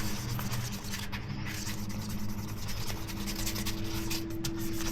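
Sandpaper being rubbed by hand over a polycarbonate camera dive case, a run of rough scratching strokes as the plastic is sanded down to remove scratches.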